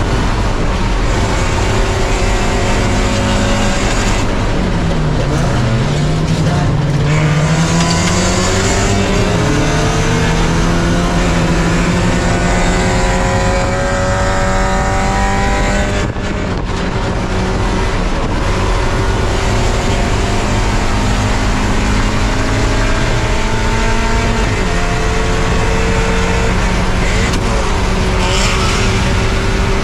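Spec Miata's four-cylinder engine at racing speed, heard onboard over wind and road noise. The revs fall about five seconds in, climb steadily for about ten seconds, and step down again near the twenty-fourth second.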